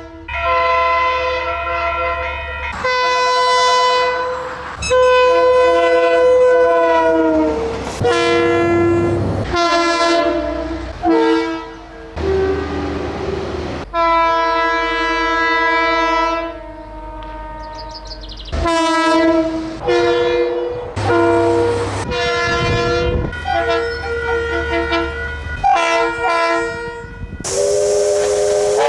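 New Zealand diesel locomotive air horns sounding a dozen or so blasts, some long and some short, each a chord of several notes sounding together. About a second and a half before the end, a steam locomotive whistle opens with a slight upward slide of pitch and a hiss of steam.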